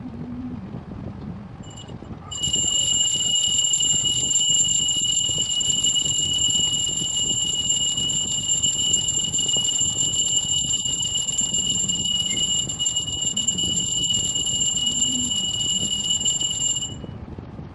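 A loud, steady, high-pitched tone that starts abruptly about two seconds in, holds one unchanging pitch for about fifteen seconds, and cuts off sharply near the end.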